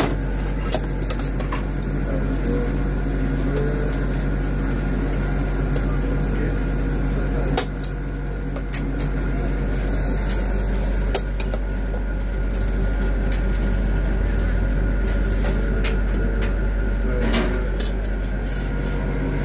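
Steady low background hum of a busy food stall, with a few sharp clicks of steel tongs against stainless-steel food trays.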